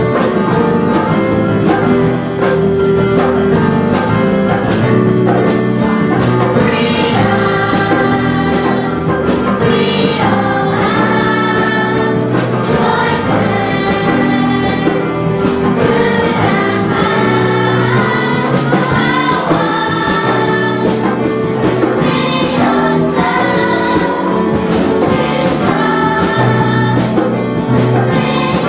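Children's choir singing a pop-style song in unison over keyboard accompaniment, the voices coming in several seconds after an instrumental lead-in.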